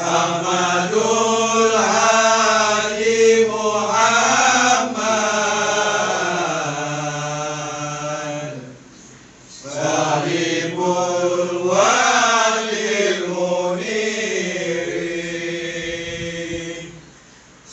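Men's voices chanting marhaban, the Malay devotional verses in praise of the Prophet, in long melodic phrases with a short pause for breath about nine seconds in.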